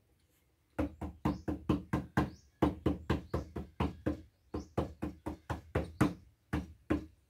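Quick runs of sharp knocks on wood, about five a second. There are three bursts of about eight knocks with short breaks between them, then two more knocks near the end.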